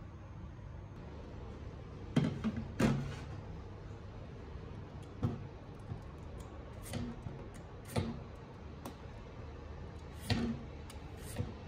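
Kitchen handling noise: a few scattered short knocks and clicks over a low steady hum, the loudest pair about two to three seconds in. Later ones come as an apple is peeled by hand with a knife over a wooden cutting board.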